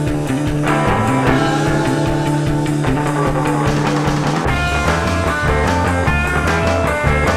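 Rock music with guitar, a backing track; the bass line changes about four and a half seconds in.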